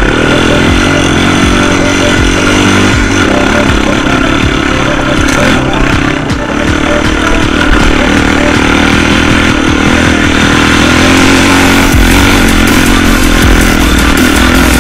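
Quad bike (ATV) engine running loud under load, its pitch rising and falling as the throttle is worked.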